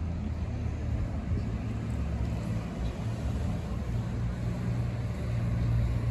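Steady low rumble of street traffic on a city boulevard, with no distinct single event.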